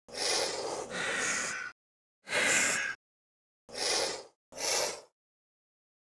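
Sniffing sound effect for a small noasaurid theropod dinosaur: five short, breathy sniffs with brief silent gaps between them, the first two run together.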